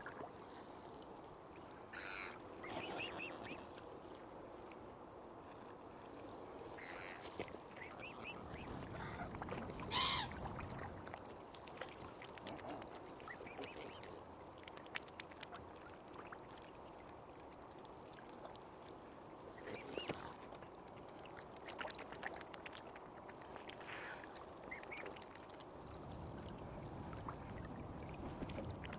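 Waterfowl calling now and then, short separate calls with the loudest about ten seconds in, over a steady wash of lapping water.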